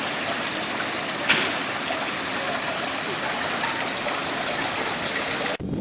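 Steady rush of running, cascading water, with one brief higher-pitched sound about a second in. The sound cuts off abruptly near the end.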